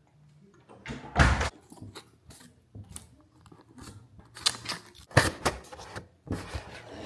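A handful of separate short knocks and clatters, as of objects being handled and set down, the loudest about a second in and again about five seconds in.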